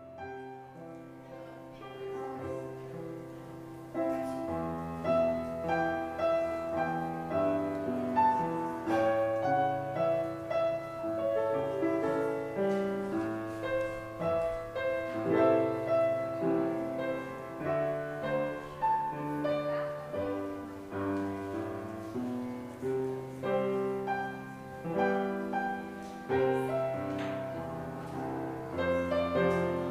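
Solo piano music, a steady flow of notes with chords underneath, quieter at first and fuller from about four seconds in.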